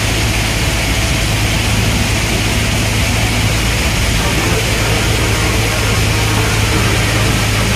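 Diesel engine of a JCB tracked excavator running steadily under load as the bucket digs into a sand pile, with a constant low hum.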